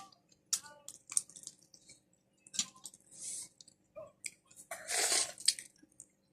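Wet eating sounds of crab and shrimp in a creamy sauce: scattered clicks and squishes of shell and sauce, with a longer wet squelch about five seconds in.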